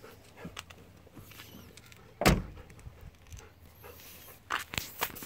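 Car door being shut: one heavy slam about two seconds in, followed by a few lighter clicks and knocks near the end.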